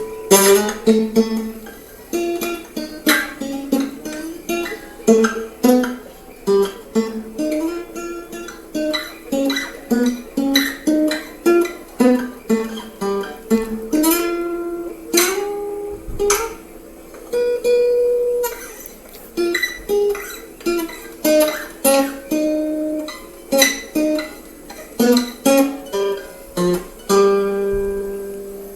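Guitar music: a melody of separately plucked notes, about two a second, with occasional strummed chords.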